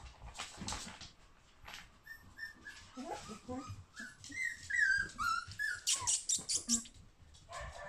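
4½-week-old puppies whimpering in a run of short, high, squeaky whines, starting about two seconds in and loudest near the middle, with scattered scratchy clicks and knocks around them.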